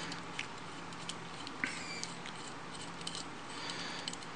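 Faint clicks and small taps of a metal airbrush being handled as its rear handle is worked off to reach the needle, with one short high squeak about one and a half seconds in, over a low steady hum.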